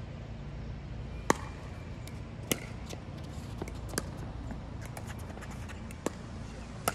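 Pickleball paddles striking the hard plastic ball in a rally: sharp, hollow pops about once a second, some louder than others, over a steady low outdoor rumble.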